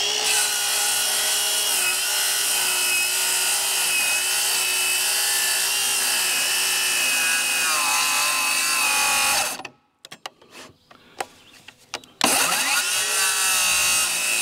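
An electric motor whining: it spins up, runs steadily for about nine seconds, winds down and stops, then after about two and a half seconds with a few clicks it spins up again.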